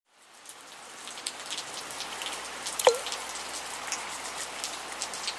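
Rain falling on a puddle and the ground: a steady patter of drops that fades in over the first second. About three seconds in comes one louder water-drop plop that drops in pitch.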